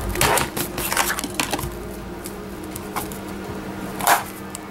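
Plastic welding goggles being picked up and handled: a run of light clicks and rustles in the first second and a half, a single click near three seconds and a short rustle near the end, over a faint steady hum.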